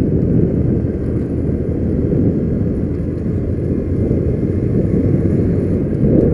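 Small motorcycle engine running steadily while riding along a street, with wind and road noise on the bike-mounted camera microphone.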